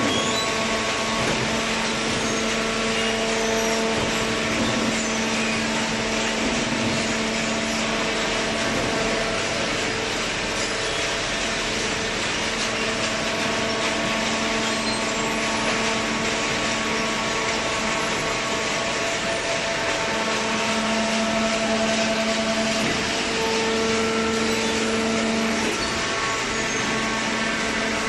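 Horizontal hydraulic cardboard baler running: a steady machine hum with a few held tones over constant noise.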